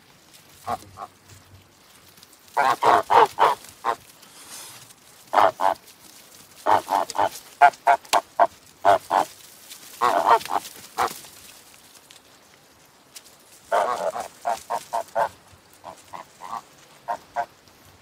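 White domestic waterfowl calling in runs of short, rapid calls, several bursts of about three to eight calls each with pauses between.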